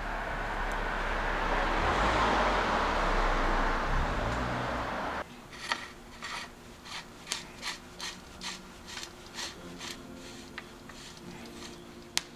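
A rushing noise that swells and then cuts off suddenly about five seconds in. After it comes a run of light clicks, roughly two a second, as a threaded bottom bracket cup is turned by hand into a bicycle frame's bottom bracket shell, with one sharper click near the end.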